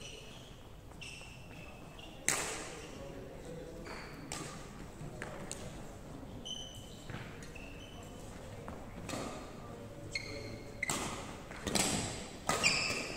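Badminton rally: rackets hitting a shuttlecock every one to two seconds, sharp smacks that echo in a large hall, the loudest about two seconds in and several more near the end. Short high squeaks of shoes on the wooden court floor come between the hits.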